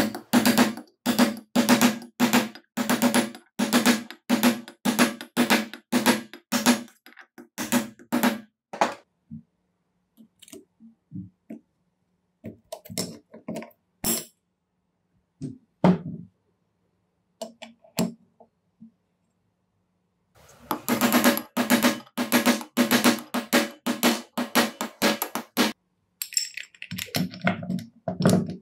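Repeated sharp, ringing knocks, about two to three a second, in two long runs with scattered single knocks between them.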